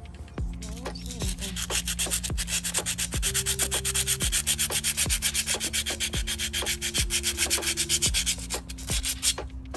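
Sandpaper scrubbed back and forth in quick, rhythmic strokes on the rim of a tractor diesel engine's crankshaft pulley, several strokes a second, to clean off grime and expose the timing marks. The scrubbing starts about half a second in and stops just before the end.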